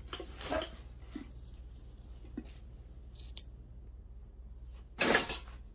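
Scattered rustles and clicks of a metal light fixture and cardboard box being handled and set down. A short, loud hissing burst comes near the end.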